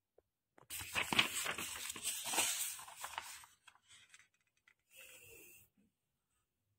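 A sheet of printer paper rustling and crackling as it is handled, in a dense stretch of about three seconds, with a fainter rustle about five seconds in.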